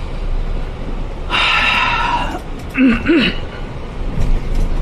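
Cab interior of a Hyundai Mega medium-duty cargo truck driving slowly: steady low diesel engine and road rumble. About a second in there is a short electronic sound lasting about a second, and near the middle a brief vocal sound from the driver.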